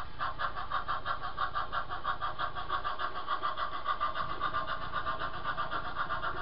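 HO-scale model steam locomotive chuffing in an even rhythm of about five beats a second as it pulls away with its passenger cars.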